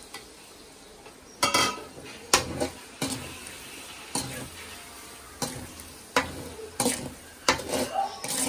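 Perforated stainless-steel skimmer scraping and knocking against an aluminium kadai as eggs are broken up and stirred into frying prawns, over a light sizzle of hot oil. Quiet for the first second and a half, then irregular scrapes and knocks roughly every half second to a second.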